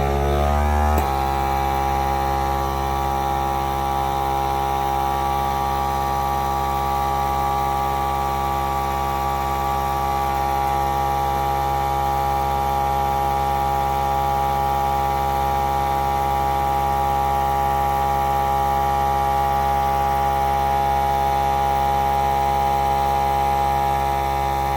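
Vacuum sealer's pump motor running with a steady hum, rising in pitch as it spins up about a second in, then holding steady and cutting off near the end.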